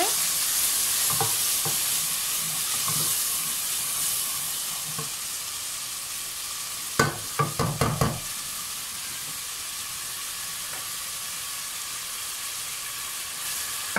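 Sliced onions and ginger-garlic paste sizzling in oil in an aluminium pot, stirred with a wooden spoon, the sizzle easing a little over the first few seconds. A quick run of knocks about seven seconds in.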